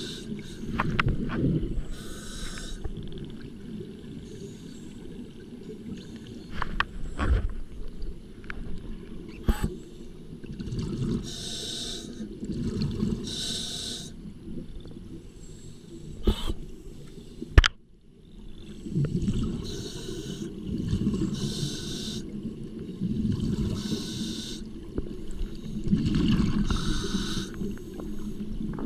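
Scuba diver breathing through a regulator underwater: hissing inhalations alternate with bubbling exhalations from the exhaust valve in a slow, repeating cycle. A few sharp knocks are heard, the loudest a little past halfway.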